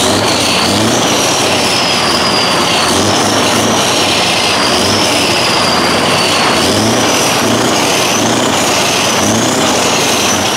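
Scania R500 V8 truck engine running while stationary with its exhaust pipe opened: a loud, steady noise with a thin high whine that wavers in pitch.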